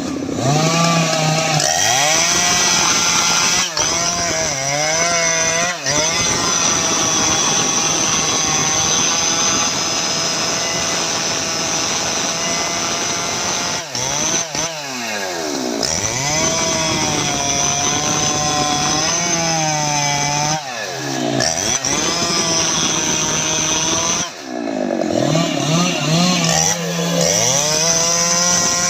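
Jonsered 2095 Turbo chainsaw's 93.6 cc two-stroke engine running at high revs while cutting teak wood, its pitch dropping and climbing back again several times as the throttle is eased and reopened.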